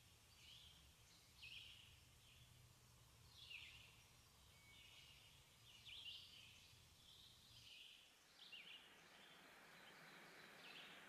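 Faint bird chirps, short falling calls repeating about once a second, over a very quiet background. A low hum stops about eight seconds in.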